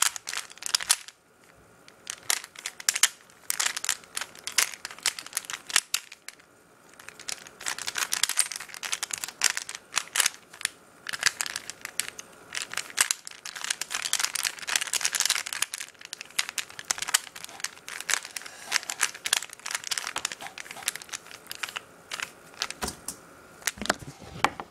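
Rapid clicking and scraping of an unlubricated plastic Rubik's Cube as its layers are turned during a solve. The turns come in quick runs broken by short pauses, about a second in and again around six seconds in.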